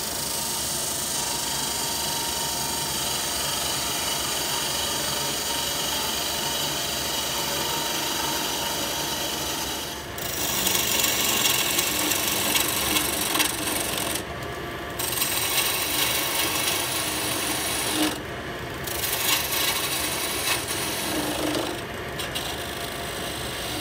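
Wood lathe spinning a black walnut vase blank while a turning tool cuts a cove into its base, with the hiss and scrape of shavings coming off. About ten seconds in, the cutting gets louder and rougher, then breaks off briefly three times.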